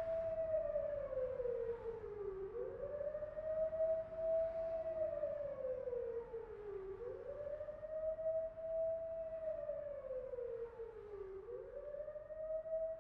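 A siren wailing: its pitch rises quickly, then slides slowly down, over and over, about every four and a half seconds.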